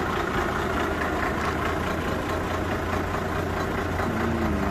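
Truck engine idling steadily with a low, even hum.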